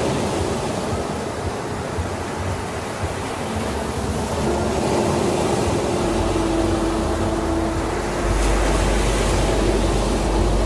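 Ocean surf washing onto a sandy beach, a steady rushing wash of waves. About six seconds in, a low rumble joins it, and a faint steady hum is heard in the middle.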